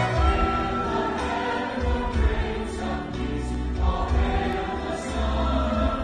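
A large choir singing with an orchestra accompanying, sustained chords over strong, deep bass notes that come and go.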